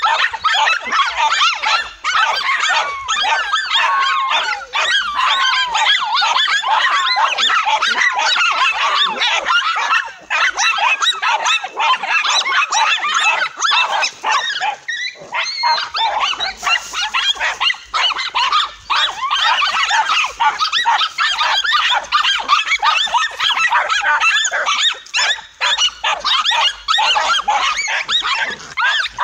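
Several dogs barking and yelping over one another without a break as they lunge at a cornered tegu lizard.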